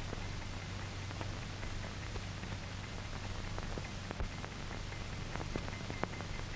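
Old film soundtrack noise with no narration: a steady hiss over a low hum, with scattered crackles and pops.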